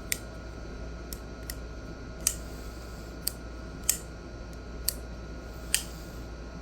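704 Gear Urban Ranger Lite V2 crossbar-lock folding knife being flicked open and shut, its lock snapping with sharp clicks roughly once a second, about six loud ones and a few lighter ones between.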